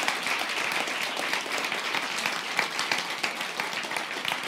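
A large indoor audience applauding: many people clapping together in a dense, steady patter.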